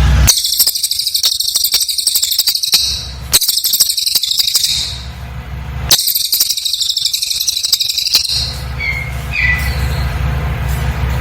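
Cililin bird singing in rapid, very high-pitched bursts of fast repeated notes, three long bursts with short regular pauses between them, then two brief softer chirps near the end.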